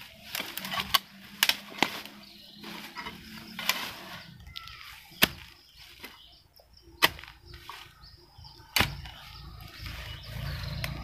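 A hand digging tool chopping into weedy soil, a series of sharp irregular strikes a second or two apart.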